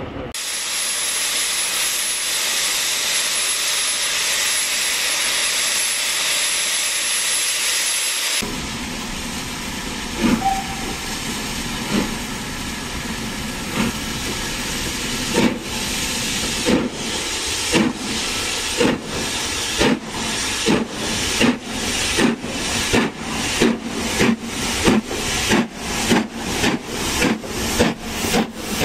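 LMS Stanier 'Black Five' 4-6-0 steam locomotive No. 5428: a steady hiss of escaping steam breaks off about eight seconds in. Exhaust beats follow, first about two seconds apart and then steadily quickening to several a second, over the hiss of open cylinder drain cocks, as the engine starts away and gathers speed.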